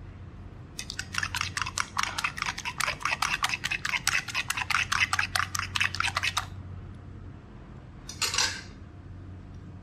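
Metal spoon mixing an egg batter in an earthenware bowl: rapid clinking of the spoon against the clay, about six strokes a second for some five seconds, then stopping.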